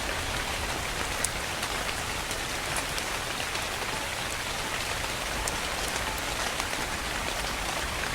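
Steady soft rain falling, an even hiss with now and then a sharper single drop tick.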